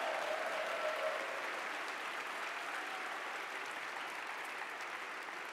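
Audience applauding in a large hall, the clapping slowly tapering off.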